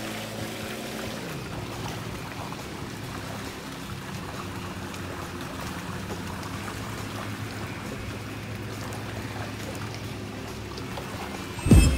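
A boat engine runs steadily throughout. Music starts abruptly near the end.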